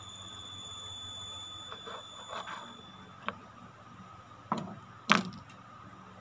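A thin, high steady tone for about the first three seconds, then a few sharp clicks and knocks of small plastic cosmetic containers being handled, the loudest about five seconds in.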